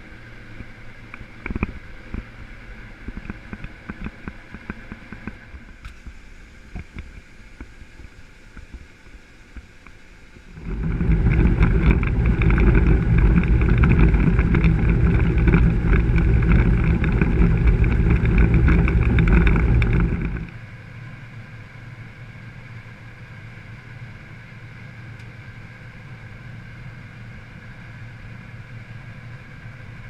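Combine harvester running, heard from inside the cab: a steady machine hum with scattered light clicks, turning much louder and heavier for about ten seconds in the middle, then settling back to a steady hum.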